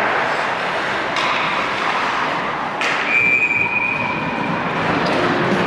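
Ice hockey play in an arena: a steady din of skates scraping the ice, with sharp clacks of sticks and puck and a loud crack about three seconds in. Right after it, a high whistle is held for about a second and a half, a referee stopping play as the goalie covers the puck.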